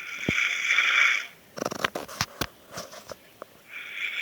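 Snoring in a slow breathing cycle: a long hissing breath lasting about a second and a half, a run of short clicks, then the next hissing breath beginning near the end.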